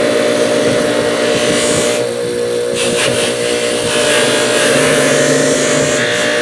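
Bench buffer motor running with a steady hum while steel needle-nose pliers are held against a spinning polishing wheel, giving a rushing hiss; the hiss drops away for a moment about two seconds in.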